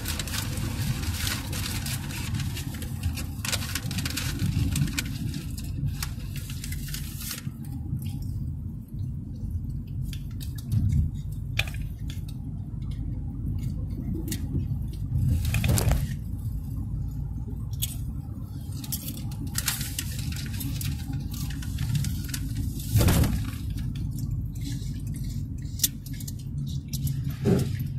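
Steady road and engine rumble inside a moving car's cabin, with scattered sharp clicks and crackles on top, thickest in the first several seconds.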